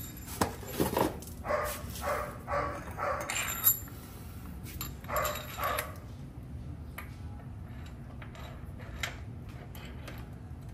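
A dog barking repeatedly in short calls about every half second for the first six seconds. After that come faint, scattered light clicks of a motorcycle frame slider and its bolt being handled at the fairing.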